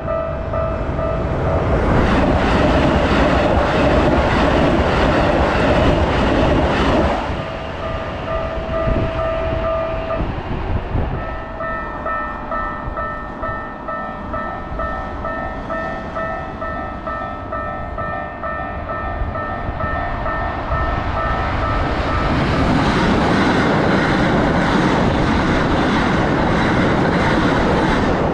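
A Japanese level-crossing alarm rings steadily with its clanging tones, pausing briefly about ten seconds in before starting again. A Keikyu electric train rushes through at speed in the first few seconds, and another train comes through near the end.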